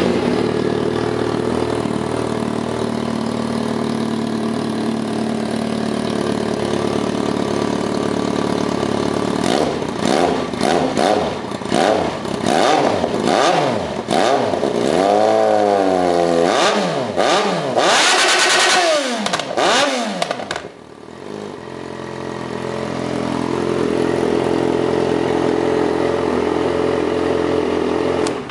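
Yamaha XJ6 inline-four motorcycle engine with a Kapetta aftermarket exhaust, idling steadily just after starting. About ten seconds in it is revved in a run of quick throttle blips, with a few longer rises and falls, for about ten seconds. It then drops back and settles to a steady idle before cutting off sharply.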